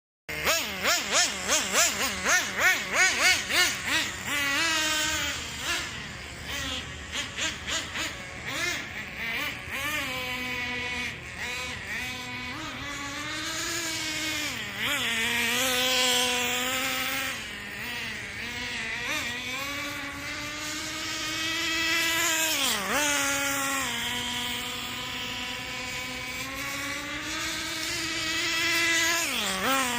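Traxxas 4-Tec RC car's small nitro (glow-fuel) engine revving: first quick throttle blips about twice a second, then running continuously with the pitch rising and falling as it speeds up and slows, with a few sharp drops in pitch.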